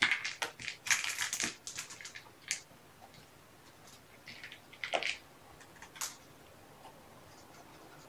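Close rustling and crackling with sharp clicks, dense for the first two and a half seconds, then a few single clicks, then quiet.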